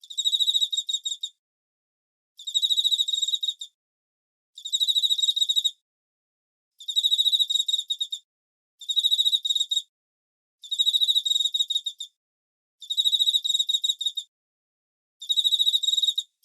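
Cricket chirping: high, rapidly pulsed trills about a second long, repeating about every two seconds with dead silence between.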